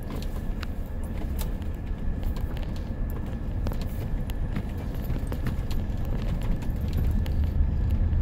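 Vehicle driving on a gravel dirt road, heard from inside the cab: a steady low rumble of engine and tyres with frequent small clicks and rattles.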